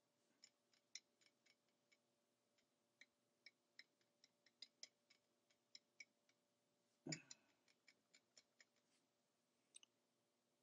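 Faint, irregular clicks of a pencil tip tapping on drawing paper while detail is added, about three a second, with one louder thump about seven seconds in.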